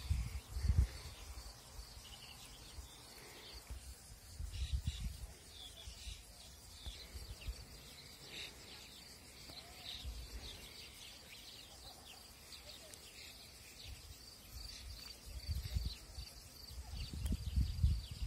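Faint chirping of small birds over a steady high insect trill, with occasional low rumbles on the microphone.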